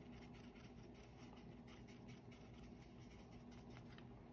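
Faint, quick taps of a thin watercolor brush dabbing on cardstock paper, many in a row.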